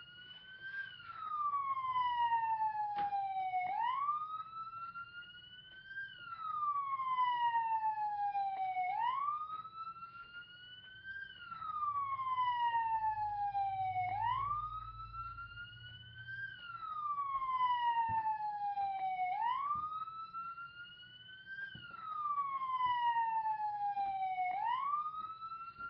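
Siren wailing. A single tone sweeps quickly up to a high peak and slides slowly back down, and the cycle repeats about every five seconds.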